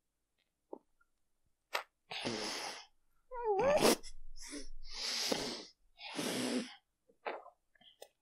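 Heavy, forceful breaths puffed out through the nose and a mouth crammed full of marshmallows, with four loud huffs in the middle seconds. A short squeaky voice rises and falls once among them.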